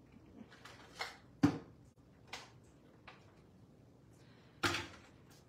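Small plastic paint bottles clicking and knocking as they are handled in a wire rack and set down on a countertop: a few sharp taps, the loudest about a second and a half in, and another short knock near the end.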